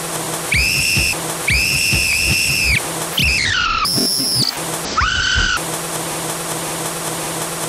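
A game-show host's whistle blown in five blasts at changing pitches: two steady blasts, then one that glides downward, a short high one and a lower one, over a low steady hum.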